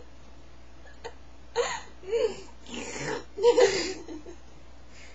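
Girls laughing in several loud bursts, from about a second and a half in until about four seconds in, the loudest just before the end of them.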